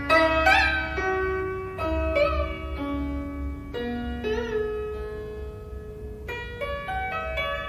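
A 16-string, metal-strung zheng (Chinese zither) played solo: single plucked notes ring on one after another, and several of them are bent up and back down in pitch.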